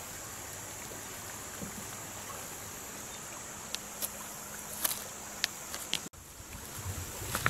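Steady outdoor rushing of a river and wind at the shore. A few sharp clicks of footsteps on loose shale and stones come between about four and six seconds in.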